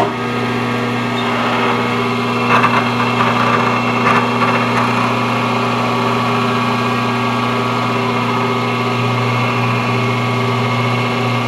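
Grizzly vertical milling machine's spindle motor starting up and running with a steady electric hum, an edge finder in the spindle. A few light clatters come between about two and five seconds in.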